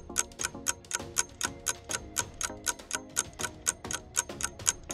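Countdown timer sound effect: a clock ticking steadily about four times a second over light music.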